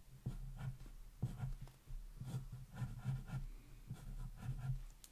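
Wooden graphite pencil scratching on a sheet of paper over a wooden desk, drawing short zigzag strokes about two or three a second.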